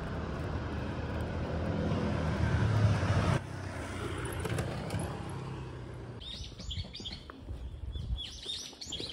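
Street ambience: a low rumble that grows over the first three seconds and stops suddenly, then small birds chirping in two quick runs of high notes in the second half.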